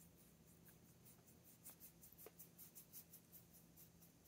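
Faint, soft swishes of a small paintbrush spreading ink across a paper swatch card. For a couple of seconds in the middle it makes a quick run of short strokes, about five a second.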